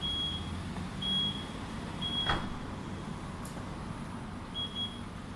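Aftermarket power tailgate system on a Mazda CX-5 beeping: four short high beeps, the first three about a second apart and the last near the end, with a single sharp click a little after two seconds, over a low steady hum.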